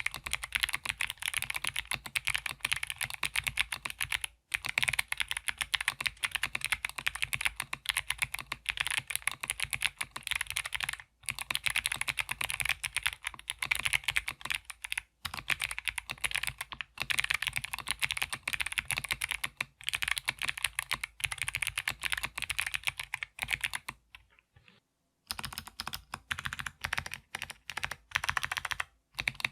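Typing on a mechanical keyboard with clicky Kailh Box Jade switches: a steady run of sharp, crisp clicks, each key press giving its own click. Near the end there is a short break, then the presses resume.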